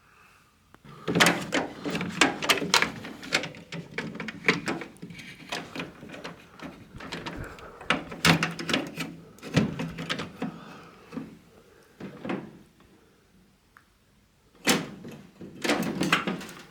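Plastic parts of a Panasonic microwave's door-latch assembly being handled and pushed into place: clusters of clicks and knocks near the start, around the middle and near the end, as pins and clips are pressed into their holes.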